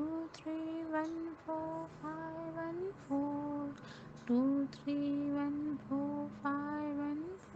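A high voice chanting the number sequence "two, three, one, four, five, one, four" in a slow sing-song melody, each digit a short held note, the sequence repeated about twice like a mantra.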